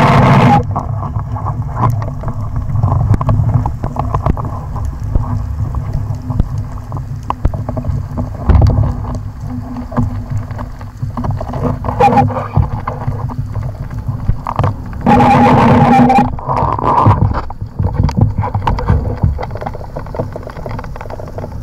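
Underwater sound picked up through an action camera's waterproof housing while a free diver swims with a speargun: a steady low rumble of water moving over the housing, with scattered sharp clicks. A few louder rushing bursts stand out, the longest about fifteen seconds in, lasting a second or so.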